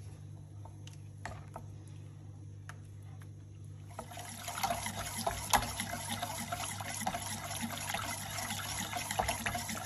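Tomato soup being stirred with a silicone spatula in a glass pot, the thick liquid sloshing with a dense crackle that starts about four seconds in. Before that there are only a few faint pops from the simmering surface over a steady low hum.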